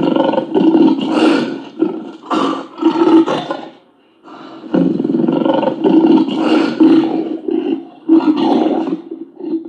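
Recorded lion roaring, in two long bouts with a short break about four seconds in.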